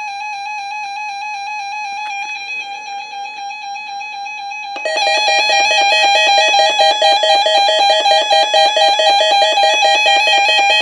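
Electronic emergency alert tone for a Required Monthly Test: a steady, buzzy beep at one pitch. About five seconds in it turns louder into a rapid warble between two pitches.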